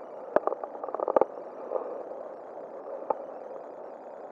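Handling noise close to the microphone as hands unhook a fish from fly line: a few sharp clicks and knocks, bunched about a second in, over a steady background murmur.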